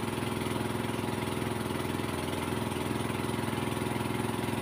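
A small engine running steadily at idle, with a fast, even pulse.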